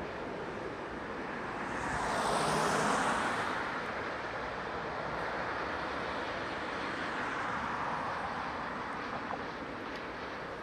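Freight train rolling away along the track, a steady rumble of wheels on rails. About two seconds in, a louder hissing swell rises and fades over a second or so.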